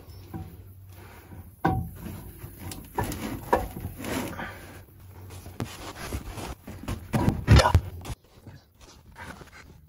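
Engine sump (oil pan) being worked free and lowered by hand from the engine: scattered metal clunks and scrapes as it is handled, with the loudest knocks about seven and a half seconds in.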